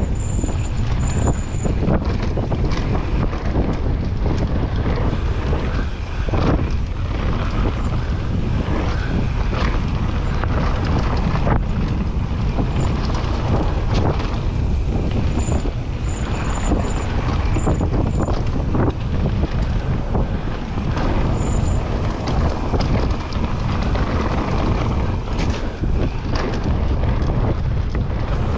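Wind rushing over the microphone of a mountain bike descending a dirt trail, with tyre noise on the dirt and frequent knocks and rattles from the bike over bumps.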